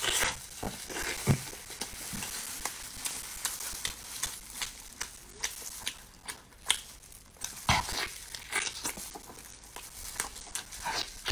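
Close-miked eating sounds: wet chewing, smacking and sucking, with many short irregular clicks and crackles, a louder cluster of them about eight seconds in.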